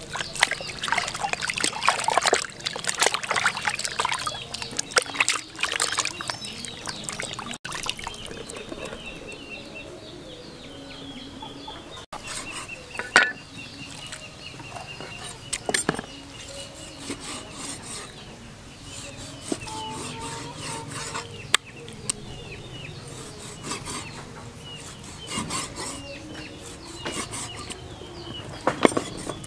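Water splashing and sloshing in a plastic basin as raw beef is rubbed and rinsed by hand. Then a cleaver slices the beef on a wooden chopping board, with a few sharp knocks of the blade on the board, while chickens cluck and small birds call in the background.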